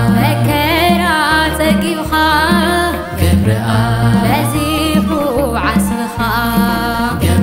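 Tigrinya Orthodox hymn (mezmur): a woman singing a melodic line with vibrato over instrumental accompaniment with a repeating bass line.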